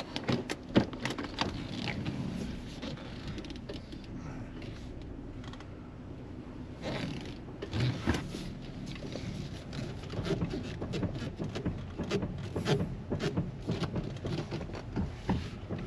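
Inside a car: irregular clicks, knocks and creaks over a low rumble, thickest from about seven seconds in.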